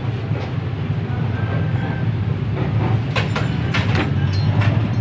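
Sharp metallic clicks and clinks of a hand tool working the timing belt auto-tensioner on a Toyota Innova D4D diesel engine, most of them in the second half, over a steady low mechanical hum.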